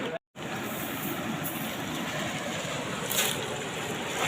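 Steady rushing of floodwater pouring over a concrete overflow weir. The sound cuts out for a moment just after the start.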